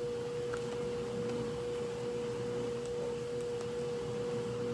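A steady, single-pitched hum with a few faint clicks.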